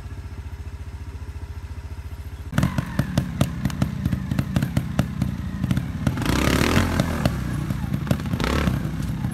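Single-cylinder trials motorcycle engine ticking over with even pulses, then, about two and a half seconds in, sharp, repeated throttle blips as the bike climbs over rocks, mixed with thuds and a louder surge of noise around six and a half seconds.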